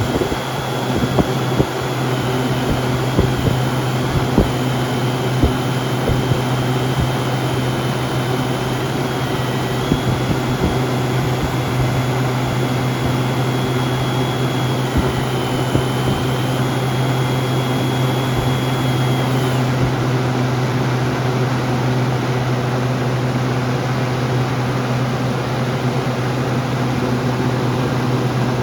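Lakewood model 227 box fan running on high: a loud, steady rush of air over a constant motor hum. The fan is very loud.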